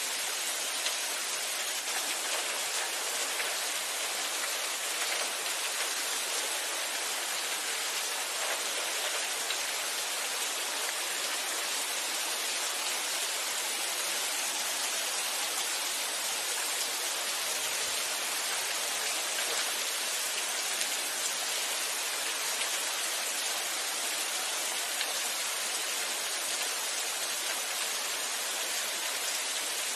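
Steady rainfall, an even hiss of many drops with no pauses or changes.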